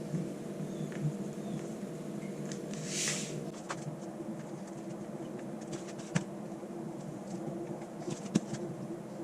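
Plastic freezer bags being handled and labelled: light clicks and rustles, with a short scratchy sound about three seconds in, over a steady low hum.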